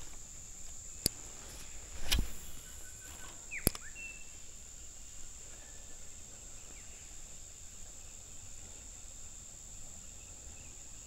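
Steady high-pitched insect chorus by an overgrown creek, with a few sharp clicks and a dull thump in the first four seconds and a short faint bird call among them.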